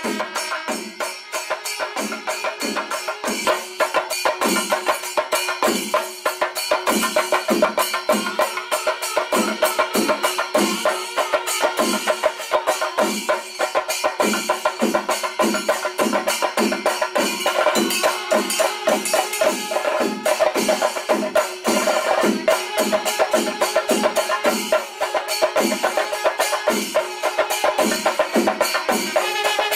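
Temple festival percussion ensemble playing: fast, steady drumming of sharp strokes with a wind instrument holding long notes over it.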